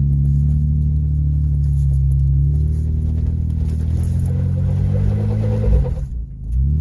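Mitsubishi Montero's V6 engine pulling steadily under load off-road. Its revs drop about five and a half seconds in and then rise and fall again near the end.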